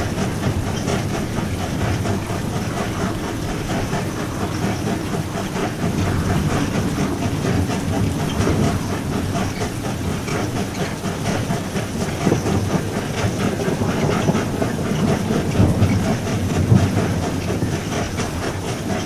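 Steam train rolling slowly, its wheels clattering steadily over the rails, under a steady high hiss.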